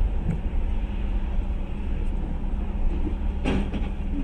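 Steady low rumble of a vehicle on the move, as a dashcam picks it up, with a faint steady hum and a short click about three and a half seconds in.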